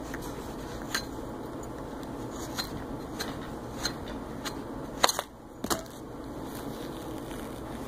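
Close handling noise of hands picking apart a tampon on a counter: scattered light clicks and taps, with a sharper pair of knocks about five seconds in, over a steady background hiss.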